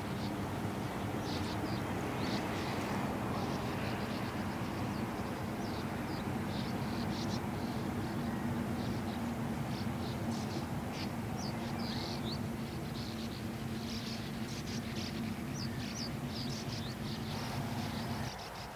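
Sand martins calling in many short, quick chirps, over a steady low drone that drops away near the end.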